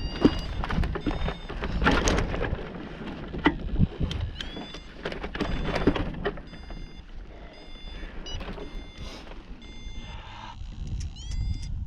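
Flight variometer sounding groups of short, high-pitched beeps with a quick upward swoop at the start of each, the beeping that signals the glider is climbing. Wind rushes and buffets on the microphone throughout, gustier in the first half.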